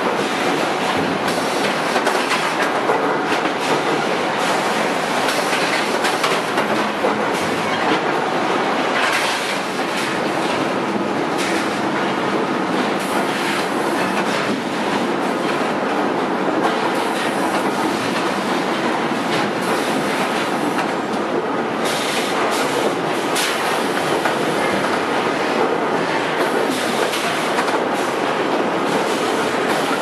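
Sawmill log-handling conveyors running: a steady loud mechanical din with frequent clattering knocks of logs and chains on steel.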